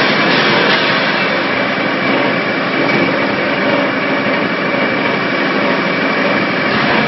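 A 75 kW coconut shell crusher running under load, shredding coconut shells into fibre and small pieces: loud, steady machine noise with a faint high whine held throughout.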